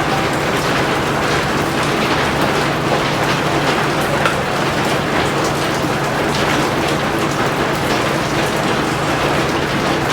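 Steady rain falling, a dense patter of drops, over a steady low hum.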